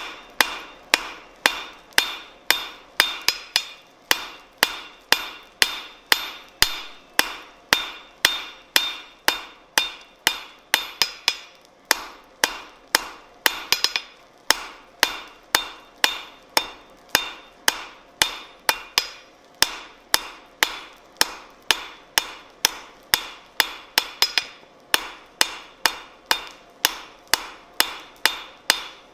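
Hand hammer striking a red-hot steel bar on an anvil in a steady rhythm of about two blows a second, each blow with a bright metallic ring. There are brief pauses about twelve seconds in and again near the end.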